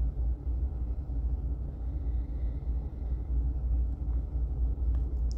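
A low, uneven outdoor rumble with nothing else prominent, with a faint thin high tone briefly in the middle.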